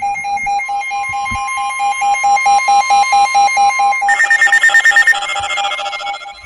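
Several weather radio alert alarms sounding at once: a rapid beeping tone under a steady alert tone, joined about four seconds in by a higher-pitched beeping alarm, and about a second later by another. This signals an incoming severe thunderstorm warning.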